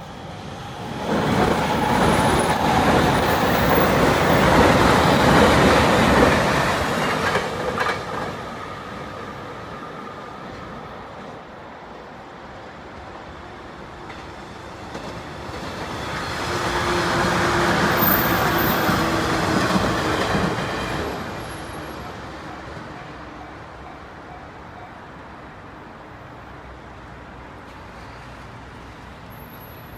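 Electric trains passing on the line: a loud run of wheels on rail lasting about six seconds, then a second, shorter pass about fifteen seconds in, each dying away afterward.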